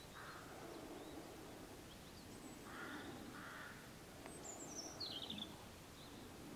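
Faint outdoor ambience in which crows caw three times, once at the start and twice about three seconds in. A small bird gives a high, quickly descending call about four to five seconds in, over a low steady background hum.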